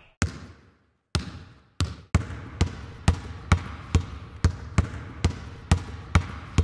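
A basketball being dribbled: a few spaced bounces, then a steady dribble of about two bounces a second.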